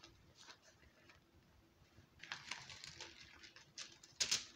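Pages of a Bible being leafed through: soft paper rustling with a few light ticks, thickest about halfway through, and one sharper flick near the end.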